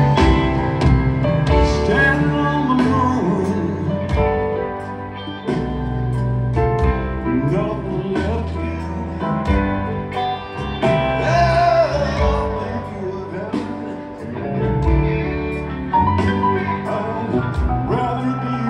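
Live rock band playing a slow ballad through a stadium PA, heard from the stands: electric guitar lines over keyboards, bass and drums.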